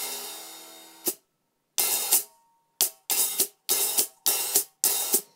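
Open hi-hat struck with a drumstick. The hi-hat is a hybrid electronic pair of cymbals with a built-in microphone. First comes one long ringing wash of about a second, which stops with a short chick as the cymbals close; then comes a run of open strokes, about three a second, each cut short.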